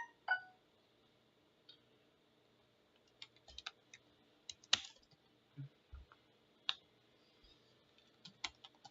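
Faint, scattered taps of a computer keyboard and clicks, sparse at first and quickening into typing near the end.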